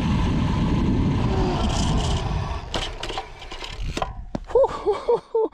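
Wind rushing over the microphone of a road bike ridden fast, dying away about halfway through as the bike is braked hard to an emergency stop. A few clicks and knocks follow, then several short squeaks near the end.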